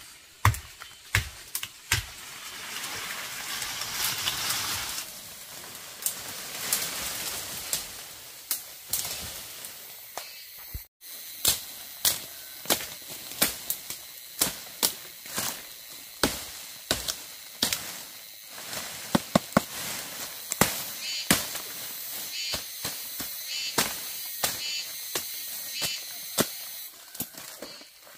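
Sharp knocks and snaps at uneven intervals, with a stretch of rustling about four seconds in; the knocks come more thickly near the end.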